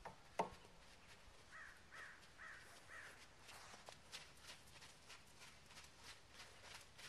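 Faint, quiet scene: a sharp click about half a second in, then a crow cawing four times, then the soft, even steps of a horse walking on arena sand, about three a second.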